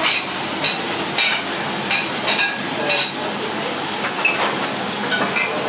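Tuna steak sizzling steadily in hot oil in a frying pan, with repeated short metallic clinks of kitchen utensils and crockery.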